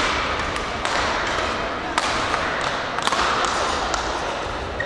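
Badminton play in a sports hall: a series of sharp hits, one every half second to a second, from rackets striking the shuttlecock and feet landing on the court, over a steady hum of voices in the hall.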